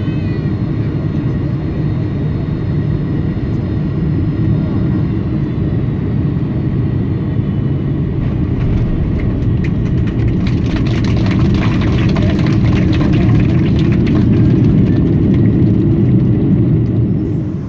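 Boeing 747-400 jet rolling after landing, heard from inside the cabin as a steady low rumble. From about halfway through, rapid rattling joins it and the noise grows slightly louder.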